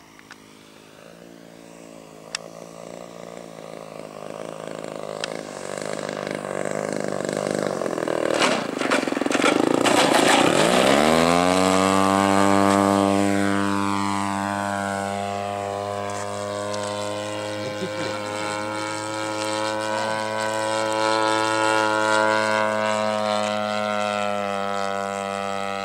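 Yak-54 model aerobatic plane's engine and propeller, growing louder as it comes in low at part throttle. About ten seconds in it revs up sharply with a quick rise in pitch as the throttle is opened on the strip, then holds a steady high-revving drone that wavers slightly as the plane climbs away.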